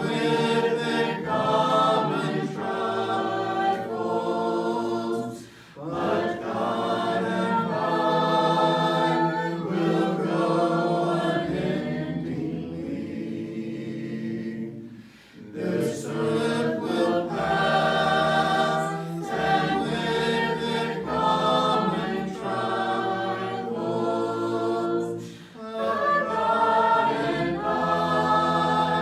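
Small congregation singing a hymn a cappella in parts, with brief breaths between phrases about every ten seconds.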